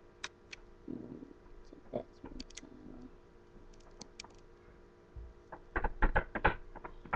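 Light clicks and taps of small plastic Lego pieces being handled, then a quick run of knocks on something about six seconds in.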